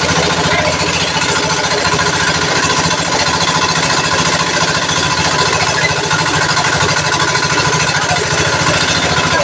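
Small engine running steadily, driving an abaca fibre stripping machine while abaca stalks are pulled through it, with a fast, even beat throughout.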